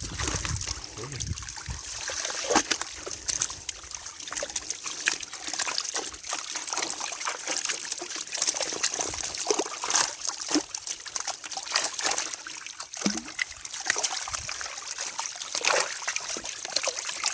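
Pond water splashing and trickling, with many small sharp splashes scattered throughout, as of fish thrashing in the shallow water of a drawn-in net.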